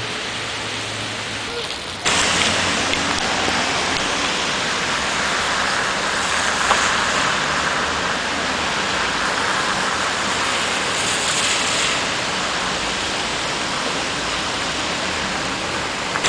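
Heavy rain hissing steadily onto flooded pavement and standing water, with road traffic behind it. About two seconds in the hiss becomes suddenly louder and then stays even.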